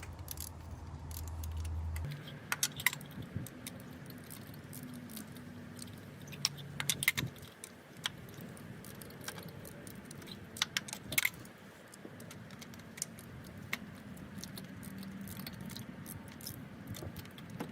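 Hand ratchet with a spark plug socket loosening a spark plug from its tube: scattered sharp metallic clicks and clinks of the ratchet and socket, coming irregularly rather than as a steady run.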